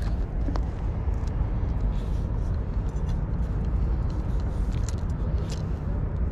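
Steady low rumble, with a few light clicks and knocks as a fishing rod and spinning reel are handled and the rod butt is set down on rock.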